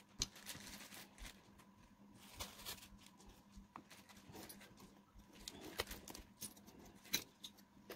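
Faint scattered clicks, taps and light rustling of fingers handling miniature kitchen items: small bowls set down and a dried red chilli broken up over a tiny wooden cutting board.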